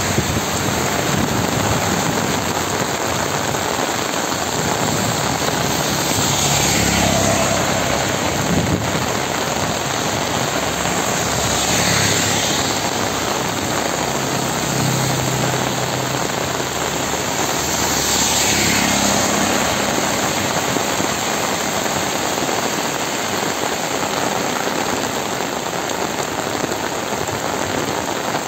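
Heavy rain falling steadily. Three brief swelling whooshes, about six seconds apart, rise over it with a faint low hum beneath them.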